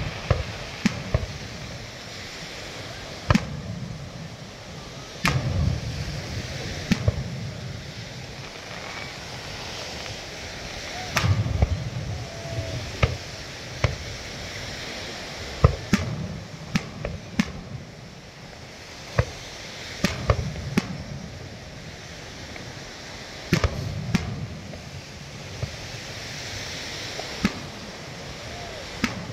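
Aerial fireworks going off: sharp bangs and cracks at irregular intervals a second or a few seconds apart, several followed by deep rumbling booms. Steady surf washes underneath.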